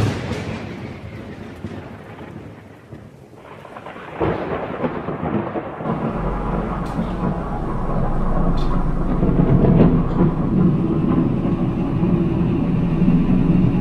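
Thunderstorm sound effect: a sudden thunder crack at the start dying away into rumbling, a second crash about four seconds in, then a steady storm rumble and hiss with a low hum underneath that grows louder.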